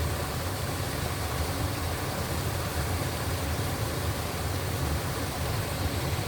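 Steady low rumble and hiss of a vehicle engine and road noise while driving.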